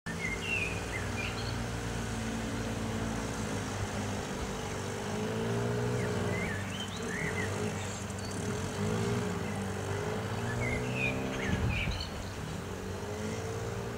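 A motor engine runs with a steady hum that wavers slightly in pitch. Birds chirp briefly near the start, around the middle and again late on.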